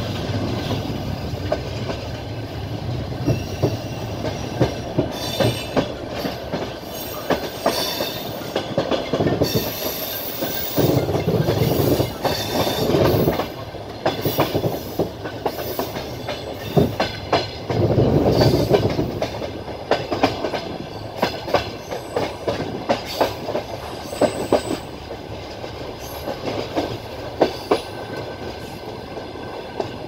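Passenger train carriage running along the track, its wheels clacking and knocking over the rail joints in an uneven clatter, with a brief high squeal from the wheels in places.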